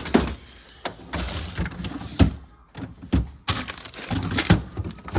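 Several sharp knocks and thumps about a second apart, with rustling in between, as things are grabbed and moved about in a kitchen.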